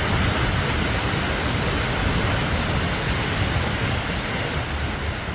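Surf and wind: an even rush of waves breaking and washing over rocks, with wind rumbling on the microphone.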